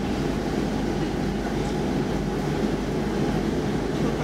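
Stockholm Metro C14 train running, heard from inside the passenger car: a steady, even running noise from the wheels on the rails and the car.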